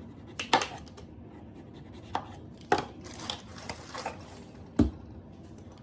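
Kitchen work at a counter: a few irregular knocks and clatters as potatoes and utensils are handled, with the loudest a deep thump about five seconds in.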